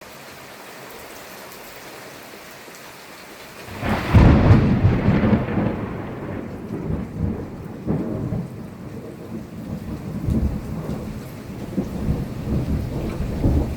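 Steady rain hiss, then about four seconds in a loud crash of thunder that rolls on into a long, low rumble with repeated pulses, rain continuing underneath.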